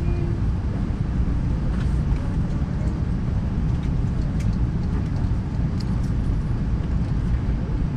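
Steady low rumble inside the cabin of a four-engined Airbus A380 taxiing: engines at low taxi power and the airframe rolling along the taxiway, with a few faint ticks and rattles from cabin fittings.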